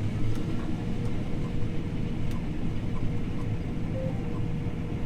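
John Deere T670i combine harvester running: a steady low drone with a thin, constant whine over it.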